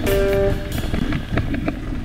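Background guitar music; its held notes stop less than a second in. Scattered sharp clicks over a low rumble follow.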